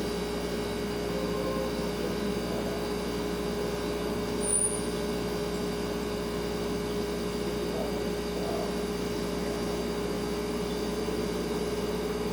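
Refrigerator compressor humming steadily, with a brief high-pitched chirp about four and a half seconds in.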